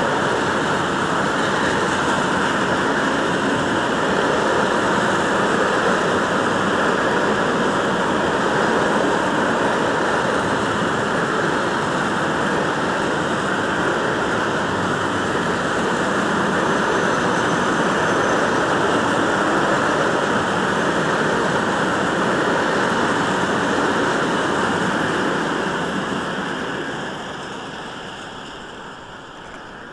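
Freight train of covered grain hopper wagons rolling past: a steady rush of wheels on the rails that fades away near the end.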